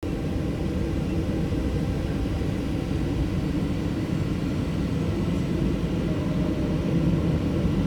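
Boeing 737 jet engines and airflow making a steady low rumble during take-off, slightly louder about seven seconds in.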